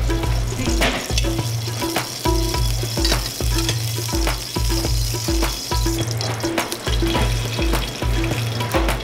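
Hot oil sizzling in an aluminium sauté pan over a gas burner as spices go in, at the start of a tempering. Background music with a steady bass beat of about two a second is louder than the sizzle.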